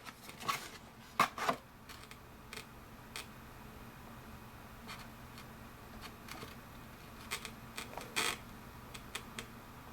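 Paper leaflets and a cardboard box being handled: a few short rustles and taps, the sharpest about a second in, with a quieter stretch in the middle.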